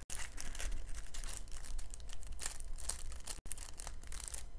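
Small plastic bags of diamond-painting drills rustling and crinkling as hands sort and push them in a plastic storage tray, broken by two split-second gaps.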